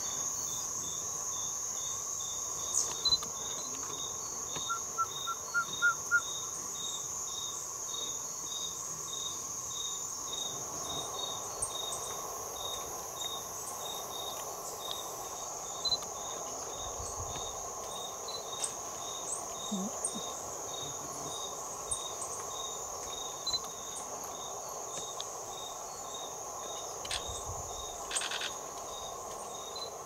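Tropical forest insects calling: a continuous high, steady trill with a chirp repeated evenly about two or three times a second beneath it. A short quick run of soft notes sounds about five seconds in.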